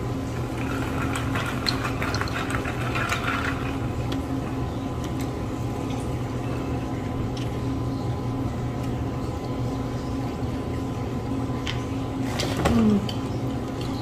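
A steady low hum with faint scattered clicks. Near the end comes one short pitched vocal sound, a brief hum or 'ahh'.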